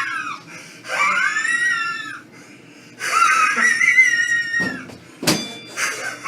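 A person's wheezing laugh: two long, high-pitched squeaky wheezes, the first about a second in and the second, longer one about three seconds in. A short sharp knock comes near the end.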